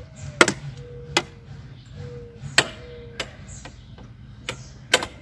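Sharp clicks and knocks of the mower's handle parts, about six in all, spaced irregularly, as the handle is fitted and locked into place on a new electric lawn mower.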